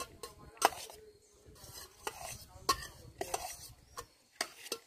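Steel spoon stirring chopped fruit in a stainless steel pot, with irregular clinks and scrapes of the spoon against the pot's side; the loudest clinks come just under a second in and near the three-second mark.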